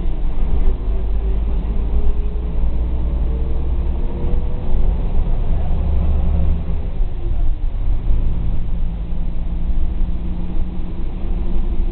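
Karosa C934 bus's diesel engine heard from inside the passenger cabin while the bus is under way. The engine note climbs over the first few seconds as it accelerates, drops away about seven seconds in, then runs steadily again.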